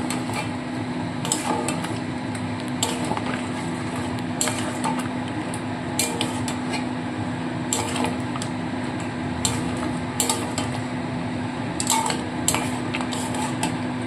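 Metal spatula scraping and knocking irregularly against a metal kadai while mutton pieces in ginger-garlic paste are stirred and fried, over a steady frying hiss and a low steady hum.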